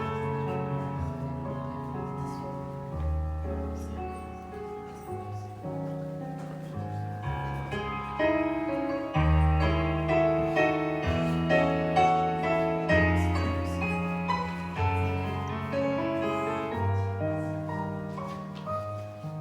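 Slow instrumental introduction to a hymn, played on a keyboard with a piano sound. Held bass notes sit under chords and a melody, and the music grows louder about eight seconds in.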